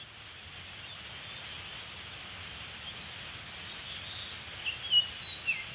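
Outdoor ambience: a steady hiss of background noise, with small birds chirping several times near the end.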